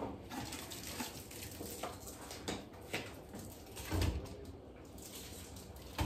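Faint scattered clicks and knocks of household things being handled at a kitchen cupboard, with a duller thump about four seconds in.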